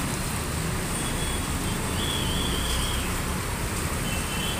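Steady noise of traffic moving along a flooded street: vehicle engines and water churning under the wheels over a low rumble. A faint high-pitched tone sounds twice, briefly.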